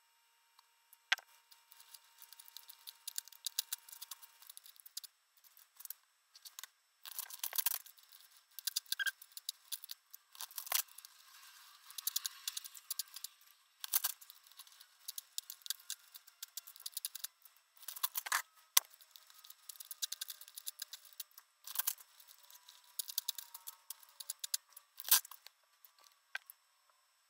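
Sheets of graph paper being ripped out of a spiral notebook and their torn side edges pulled off, heard as irregular bursts of paper tearing and rustling with short pauses between.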